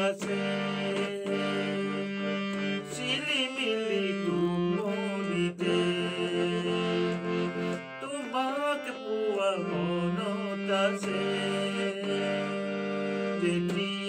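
A man singing an Assamese modern song (adhunik geet) with ornamented, wavering melodic lines, accompanying himself on a harmonium whose reeds hold sustained chords beneath the voice.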